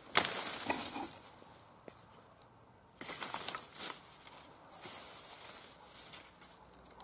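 Fiskars XA23 brush hook chopping into dry rose bramble canes, the stems crackling and the brush rustling as they are cut and dragged. A sharp chop comes near the start and another about four seconds in, with a quieter stretch between.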